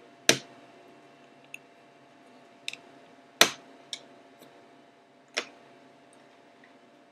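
Kamen Rider OOO DX O Medals, plastic toy coins, clacking as they are handled and set into the slots of a medal case: several sharp clicks, two of them much louder, one shortly after the start and one about three and a half seconds in.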